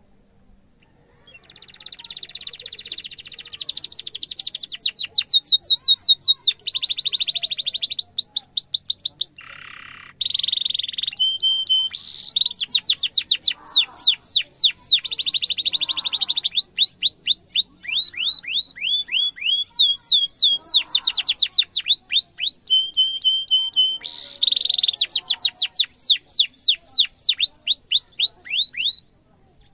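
Domestic canary singing one long song of rapid trills and fast downward-sweeping 'cuit cuit' notes, with a buzzing roll and a couple of short held whistled notes. It starts about a second and a half in and stops just before the end.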